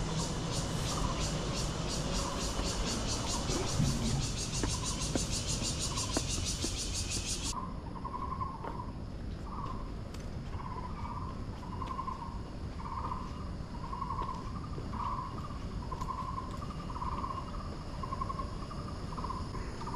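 Insects buzzing in a high, rapidly pulsing chorus that cuts off suddenly about seven seconds in. Under it a lower animal call repeats more than once a second, with a low rumble beneath.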